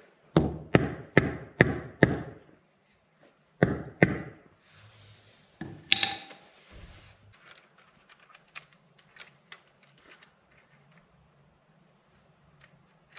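Hammer blows: five quick even strikes, about two and a half a second, then two more a moment later, and a ringing knock about six seconds in. Faint small taps and clinks follow.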